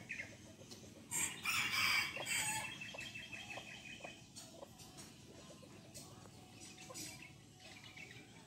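A rooster crows once, about a second in, for about a second and a half. A few short clucks follow.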